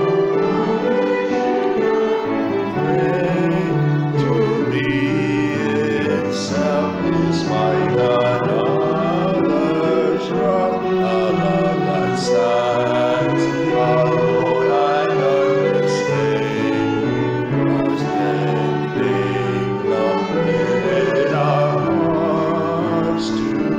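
A hymn sung by voices with instrumental accompaniment: a steady, moving tune over a sustained bass line, with the sung words' sharp 's' sounds cutting through now and then.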